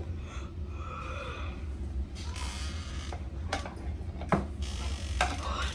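A few sharp knocks and light rustling as pieces of a new couch are handled and set down, over a steady low hum. The sharpest knocks come about three and a half and four and a half seconds in.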